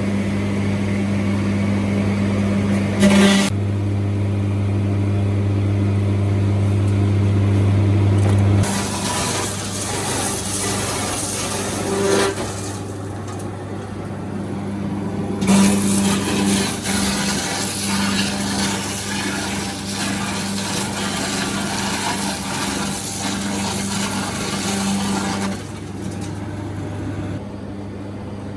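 Sawmill machinery running with a steady motor hum. Long stretches of louder, noisy cutting or grinding start about nine seconds in and stop about twenty-six seconds in. There is a sharp knock about three seconds in.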